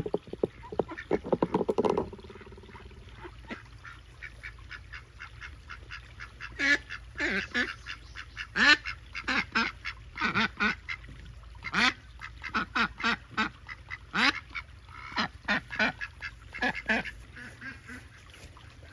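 Ducks quacking, a dense loud flurry of calls in the first two seconds, then quacks on and off.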